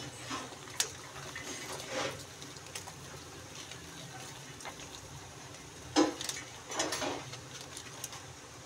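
Paper-and-foil popcorn packet, puffed and burnt through, crackling and rustling in short scattered bursts as it is peeled off the popped corn on a hot flat pan; the loudest crackles come about six and seven seconds in, over a low steady hum.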